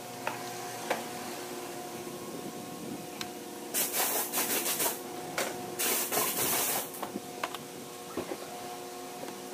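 Two hissing bursts of spray, each about a second long, come about four and six seconds in. They sound over a steady hum, with a few scattered clicks.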